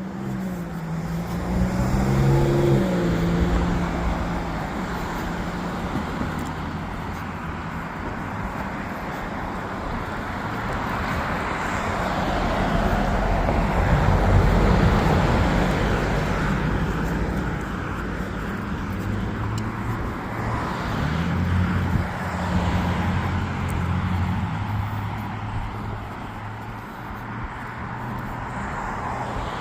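Road traffic: cars running and passing, with a steady rush of tyre noise that swells to its loudest about halfway through.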